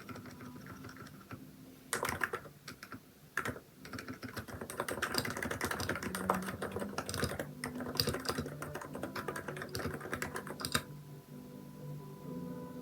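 Typing on a Hansung electrostatic capacitive (contactless) keyboard with XDA-profile keycaps: quick runs of keystrokes in bursts, a few short runs early, then a long dense run, thinning out near the end.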